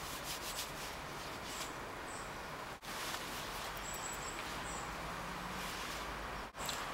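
Steady outdoor background hiss with a few faint, short, high chirps of small birds; the sound cuts out briefly twice.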